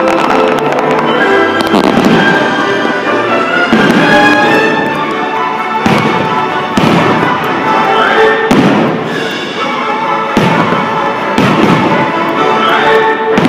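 Fireworks bursting every second or two over loud show music.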